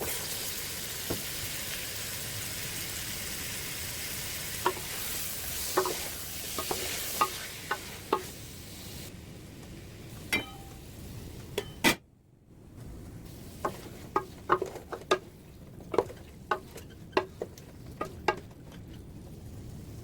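Food sizzling as it fries in a pan, with a spoon knocking and scraping against the pan as it is stirred. The sizzle is loudest for the first half, then fades. After a brief break about twelve seconds in comes a quick run of knocks from the stirring.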